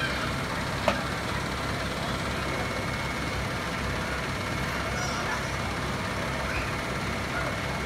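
Fire truck's diesel engine running steadily with a low rumble, as it powers the raised aerial platform. A single sharp click comes about a second in.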